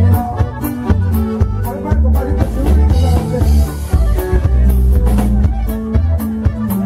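Conjunto band playing: a drum kit keeps a steady beat over a strong bass line and melodic instruments, with a cymbal ringing for a moment about midway.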